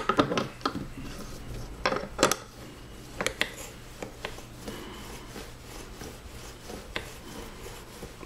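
Light, irregular metallic clicks and taps from an old watch screw-head polishing machine as the screw is set on and worked over its fine lap, several in quick succession at first, then single ones spread out.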